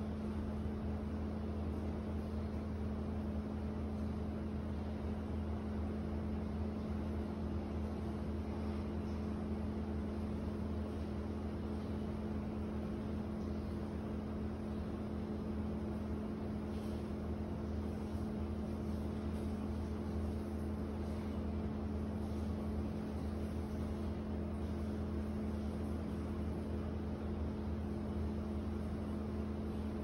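Steady ambient hum of a Taiwanese apartment lane: a constant low mechanical drone with a steady pitched tone in it, over a soft even hiss, unchanging throughout.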